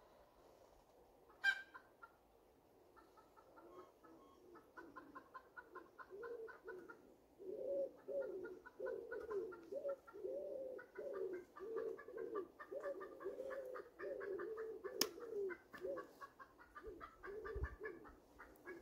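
Chickens clucking, a long run of short, quick notes, with a couple of faint clicks.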